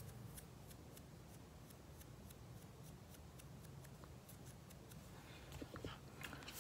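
Near silence: faint, rapid light ticks and scratches of a makeup brush being worked in a powder compact, with a few small clicks near the end, over a low room hum.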